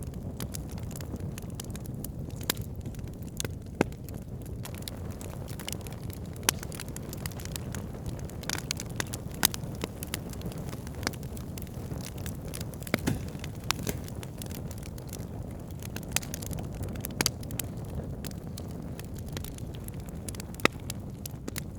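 Wood campfire burning: a steady low rumble of the flames with irregular sharp crackles and pops of the burning wood, a few of them louder than the rest.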